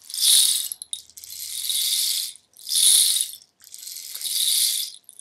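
A hand percussion rattle shaken in bursts, making a hissing, rain-like patter. Short loud bursts alternate with longer, softer ones, four in all.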